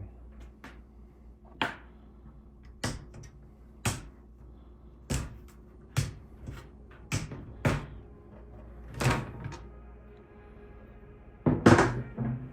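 Top cover of a Corsair 5000D Airflow PC case being pried and pulled off: about nine sharp clicks and knocks a second or so apart, the loudest near the end.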